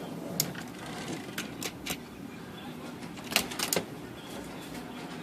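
Sharp metal clicks and taps as the carriage screws of an Adler Satellite 2001 typewriter are tightened down, over a steady low hum. Several single clicks in the first two seconds, then a quick cluster of louder ones about three and a half seconds in.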